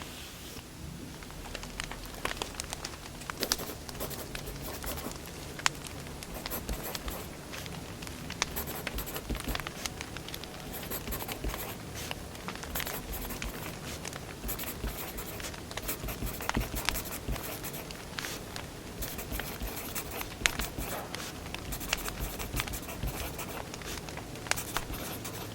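Firewood burning, crackling throughout with frequent irregular sharp pops over a soft hiss.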